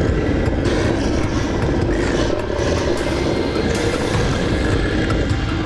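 A giant monster's long, rumbling roar, used as a sound effect.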